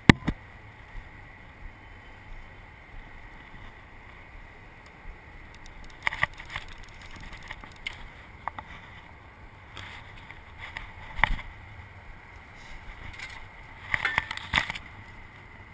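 Scattered sharp knocks and clicks from fishing gear being handled (rod, baitcasting reel and a landing net at a metal railing), loudest right at the start, about 11 seconds in, and in a quick cluster near the end, over a steady low background of wind and traffic.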